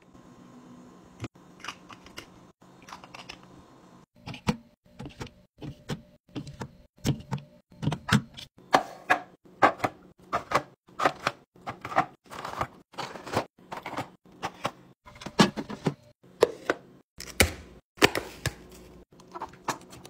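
Liquid pouring into a bottle at first, then a quick run of sharp taps, clacks and crinkles from about four seconds in: snack packs and clear plastic organiser bins and lids handled and set down on a counter.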